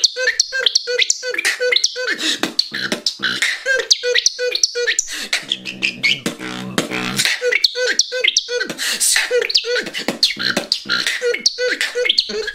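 Beatboxing: a fast, steady beat of mouth-made clicks and drum hits, laced with short repeated whistled notes and bird-like chirps.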